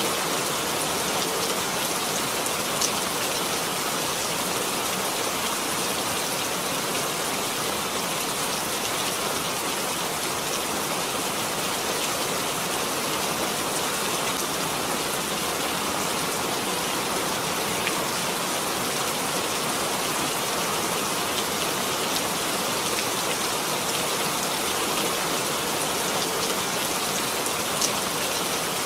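Steady rain falling, an even hiss with a few louder single drops striking close by.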